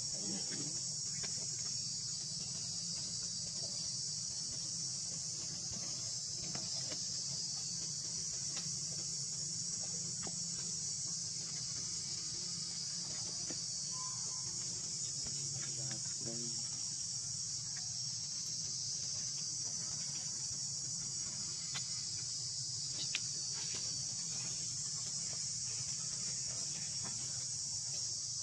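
Steady high-pitched insect chorus droning without a break, over a low steady hum, with one sharp tick a little past two-thirds of the way through.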